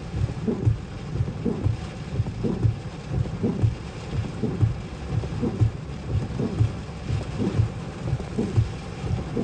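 Heavy rain drumming on a car's roof and windshield in a thunderstorm, with a regular low thump about once a second from the windshield wipers sweeping.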